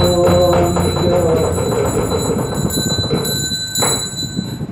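Buddhist yeombul chanting by a monk and congregation, the voices holding long, steady notes over an even beat of percussion strikes. The chanting drops away about one and a half seconds in while the strikes keep going.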